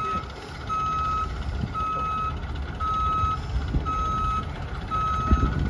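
Vehicle reversing alarm beeping at a single steady pitch, about once a second, each beep lasting about half a second, over a low rumble, with a sharp knock near the end.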